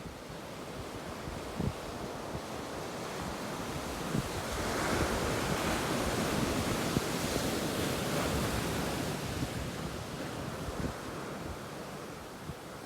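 Ocean surf: a wave rolls in and washes up, its rush swelling about four seconds in and fading away before the end, with gusts of wind buffeting the microphone.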